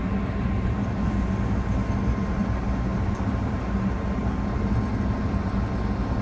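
Gas furnace running with its burners lit: a steady low rumble with a steady hum.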